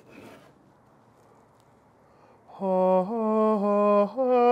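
A faint last rasp of a knife through crisp puff pastry right at the start, then, about two and a half seconds in, a voice singing a short run of held notes that step up and down in pitch.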